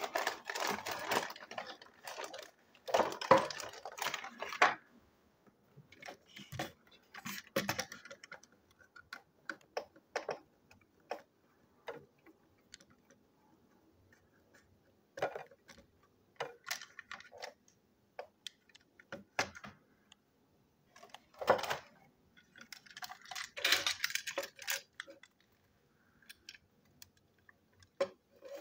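A plastic toy train tender being put back together by hand, with a screwdriver driving its screws. The sound is irregular clicks, taps and clatters with short pauses between them.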